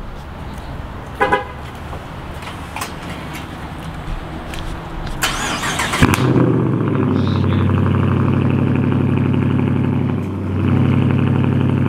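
Dodge Charger's V8 remote-started: a short crank about five seconds in, catching suddenly about a second later, then a loud, steady fast idle that dips briefly and picks back up near the end. It is a cold start after the car sat all day, which is taken for why it is so loud.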